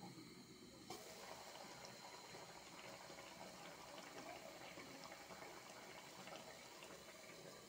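Thick curry simmering in a metal kadai on a gas burner: faint, steady bubbling with small pops. About a second in there is a sharp click as the lid comes off, and the bubbling is clearer after it.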